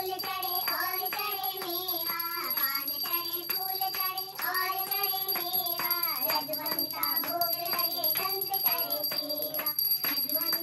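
Hindu devotional hymn (aarti) sung in long, held, wavering notes during a puja.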